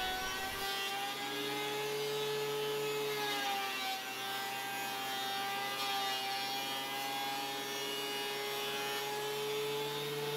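Benchtop thickness planer running as walnut strips are fed through it, a steady hum whose pitch sags briefly a few seconds in as the machine takes a load.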